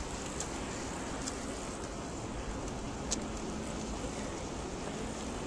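Steady wind and tyre noise from riding a road bicycle on asphalt, with a few faint ticks.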